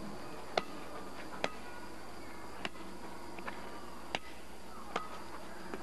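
Quiet background hiss broken by a series of short, sharp clicks at uneven spacing, about one a second.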